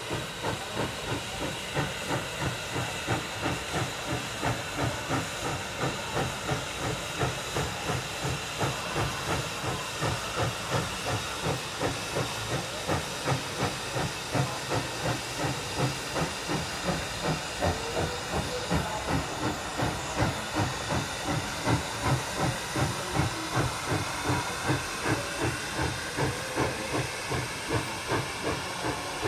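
Tweetsie Railroad No. 12, a 4-6-0 steam locomotive, working a passenger train at speed. Its exhaust chuffs come at an even rate of about two a second over a steady hiss of steam.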